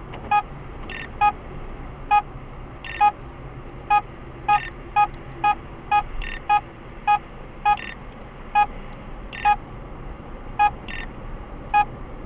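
Radar detector alert beeping inside a moving car's cabin: a string of short electronic beeps, about one a second at first, coming faster in the middle and spacing out again towards the end, over steady tyre and road noise.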